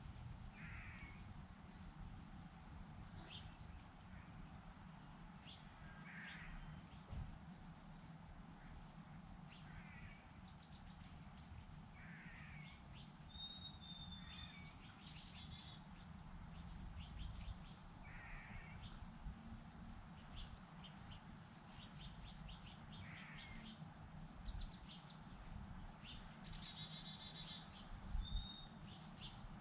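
Wild birds calling outdoors: many short, high chirps and a few brief whistles, with a harsher, lower call repeating every few seconds. Faint, over a steady low background rumble.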